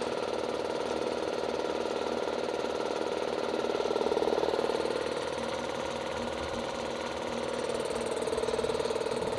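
A 150-litre air compressor running steadily on its first test run after its broken motor wire was resoldered: an even, pulsing hum that is fairly quiet, swelling slightly a few seconds in and again near the end.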